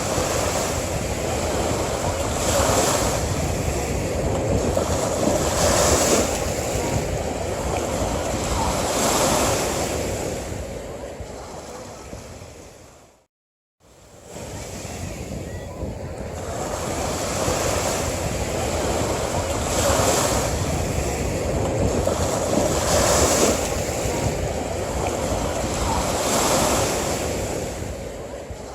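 Sea waves breaking on a beach, a steady rushing surf that swells about every three seconds. A little before the middle it fades out, goes silent for a split second, then fades back in and repeats the same wave pattern.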